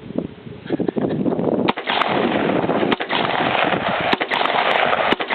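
Rock River AR-15 rifle firing single shots, several spaced roughly a second apart and starting about a second and a half in, over a loud steady hiss.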